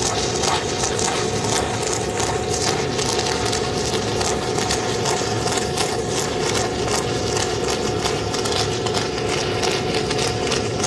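Arc of a 3/4-inch Cor-Met F25 stick electrode burning at about 1000 amps: a steady, dense crackle and sizzle with a continuous hum under it.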